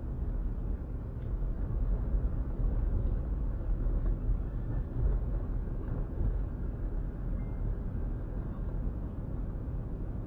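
Steady low rumble of a car's road and engine noise, heard from inside the moving car's cabin through a dashcam microphone, swelling slightly for a few seconds.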